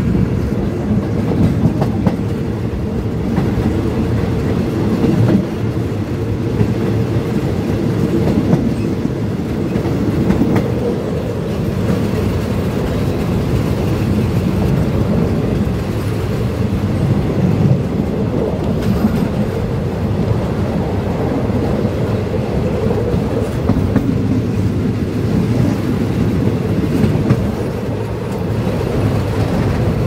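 State Railway of Thailand ordinary passenger train running along the line, a steady rumble of wheels on the rails with occasional clatter, heard from an open carriage window.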